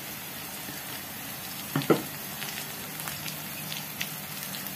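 Oil sizzling and crackling steadily in a pan of frying onions with freshly added ginger-garlic paste. A brief sharp sound about two seconds in.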